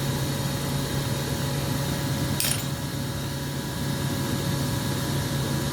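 Steady low mechanical hum, with one short, sharp clink of glass about two and a half seconds in as pieces of a broken radiometer bulb are handled.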